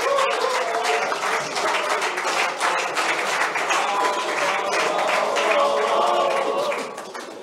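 Audience applauding, with voices mixed in; the applause dies down near the end.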